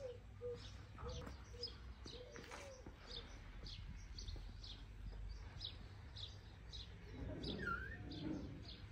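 Birds calling: short high chirps repeated about twice a second, with a run of short low notes in the first few seconds.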